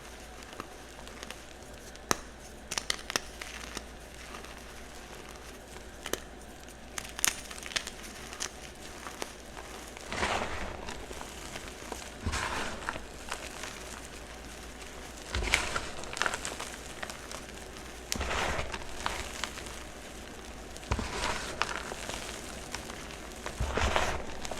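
Soft chalk blocks being crunched: scattered sharp cracks at first, then a longer burst of crunching and crumbling about every few seconds.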